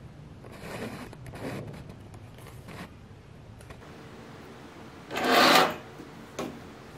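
Metal clamp parts with threaded rods being handled and slid across a desktop: a few soft rubs, then one louder scrape of about half a second about five seconds in, and a short scrape just after it.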